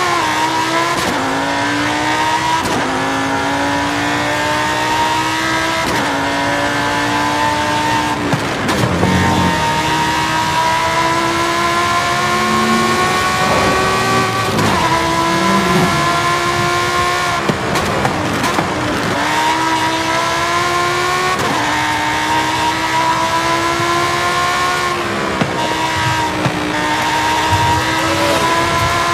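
Car engine running hard through the gears: its note climbs steadily, then drops sharply at each gear change every few seconds, with a few brief lifts off the throttle.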